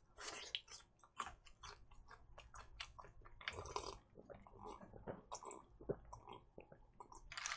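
Close-miked eating sounds: a run of small, irregular wet clicks as a person chews fried chicken, then sips and swallows cola from a plastic cup in the second half.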